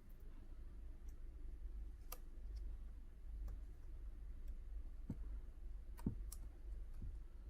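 About half a dozen scattered small clicks and taps from handling laptop screen parts during reassembly, over a low steady hum.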